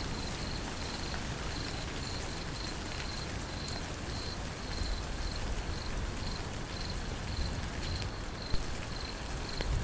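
Steady rain, with an insect chirping at a high pitch in an even rhythm of about two or three chirps a second.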